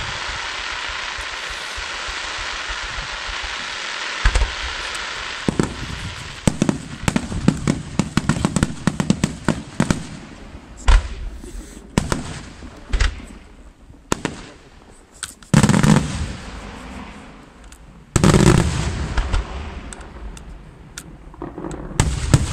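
Senatore Fireworks display. It opens with a steady hiss of ground fountains spraying sparks, then a rapid string of sharp crackling reports, then several heavy booms of aerial shells bursting, each followed by a low rumbling tail.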